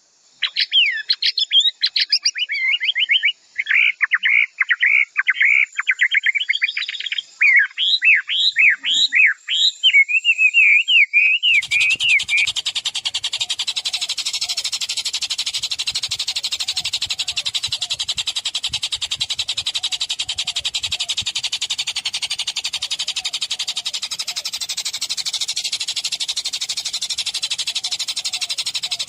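Recorded songbird song used as training ('masteran') material for caged white-rumped shamas: a fast run of repeated rising-and-falling chirps, then, about 11 seconds in, an abrupt switch to a continuous, very fast even trill.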